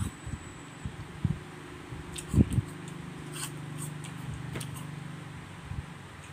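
Chewing and crunching of fresh fruit close to the microphone: a few short, crisp bites, the loudest about two and a half seconds in. From about three seconds in a low steady hum runs underneath.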